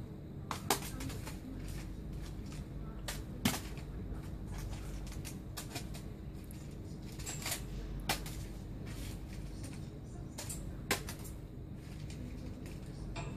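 A handful of sharp, light taps at irregular intervals, the loudest about three and a half seconds in, as a small light ball is batted back and forth between a hand and a cat. A faint steady hum runs underneath.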